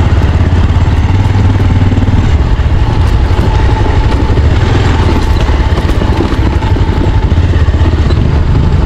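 Motorcycle engine running steadily as the bike is ridden along a dirt trail, with a dense low rumble throughout.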